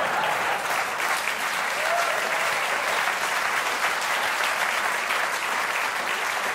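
Audience applauding: a dense, steady round of clapping that holds throughout.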